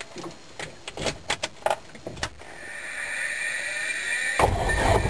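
Clicks of keys and switches in a light aircraft's cockpit, then a rising electric whine as the start begins, and about four seconds in the single piston engine catches and runs with a sudden low, loud note.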